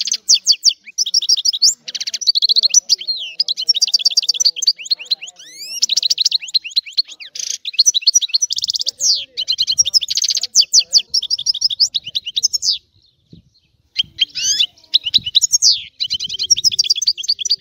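European goldfinch singing: a fast, liquid twittering song of rapid trills and chirps, running on almost without break, with a pause of about a second near the end before it starts again.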